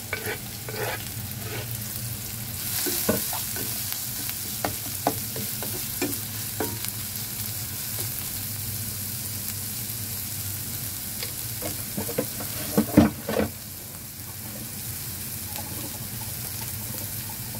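Minced garlic, shallots, ginger, chilli and fermented black beans sizzling in hot oil in a nonstick wok, stirred with a spatula that clicks and knocks against the pan, loudest about 13 seconds in.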